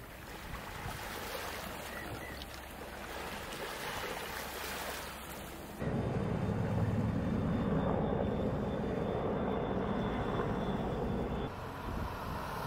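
Harbourside outdoor ambience: a steady wash of wind and water, then, after an abrupt change about six seconds in, a louder low engine rumble with a faint steady high whine, which drops away about a second before the end.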